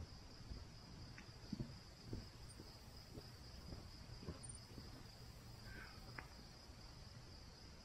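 Insects chirring in a steady, faint, high-pitched chorus, with a few faint low knocks and a short click.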